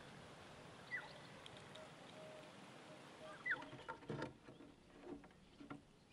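Squirrel foraging and gnawing at nuts and corn on a wooden board: a faint cluster of crunching, scraping clicks in the second half. A short downward-sliding bird chirp sounds twice over a faint outdoor hiss.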